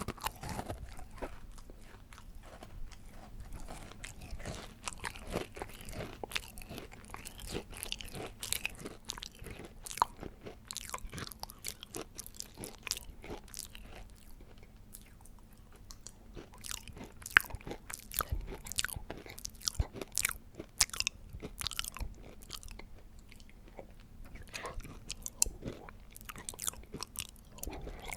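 A person eating cake: repeated bites and chewing, with many small irregular crunches and clicks, a few of them louder.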